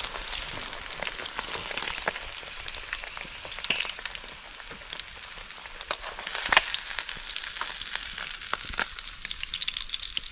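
Lapu-lapu (grouper) frying in hot oil in a small wok: a steady sizzle with frequent crackling pops.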